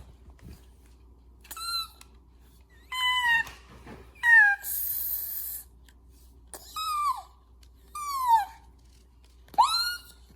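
A series of about six short, high mewing calls like a kitten's meows, most sliding down in pitch. A brief hiss of noise comes between the third and fourth calls.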